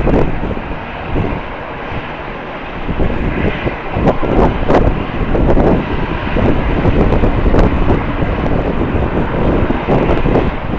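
Jet airliner engines running, a steady rushing noise, mixed with strong gusty wind buffeting the microphone.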